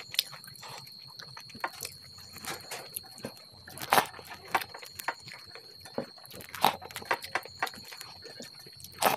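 Close-up sounds of eating rice and dal by hand: wet chewing and lip smacks, with fingers squishing rice against a steel plate. Irregular, with a few sharper smacks about four, six and a half and nine seconds in.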